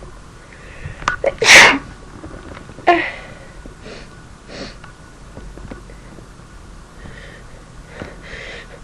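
A person sneezing after a build-up: a few quick catching breaths, then one loud sneeze about a second and a half in and a shorter second burst about a second later, followed by soft breathing.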